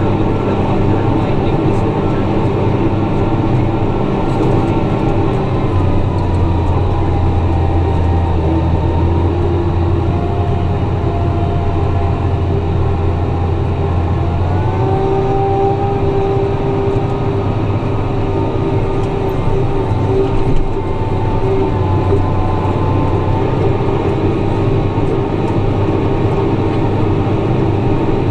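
Tractor engine running steadily under load while pulling a ripper through the ground. The engine note shifts a couple of times.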